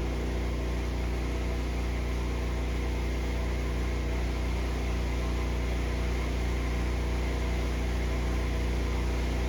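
Pressure-washing rig's engine running steadily at constant speed, with an even hiss of water spray over it.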